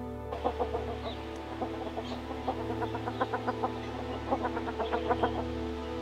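Australian wood duck calling: a chattering series of short, rapid notes, busiest in two quick runs in the second half, over soft background music.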